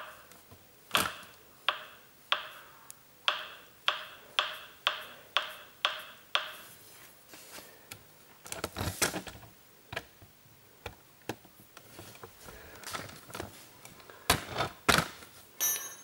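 A run of about ten sharp metallic clicks, roughly two a second, from the speedometer drive housing on a motorcycle front wheel hub as it is turned by hand to seat its ridge against the fork lug. Scattered clatter and a few louder knocks follow.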